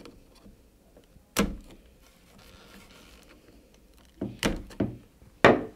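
Flathead screwdriver working trimmer line off the cleats of a Bosch grass trimmer's plastic spool: a sharp click about a second and a half in, then a quick run of clicks and snaps near the end.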